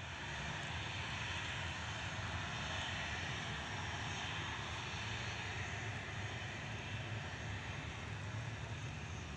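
Airliner engines running, a steady rush with a low rumble that swells slightly at the start and then holds.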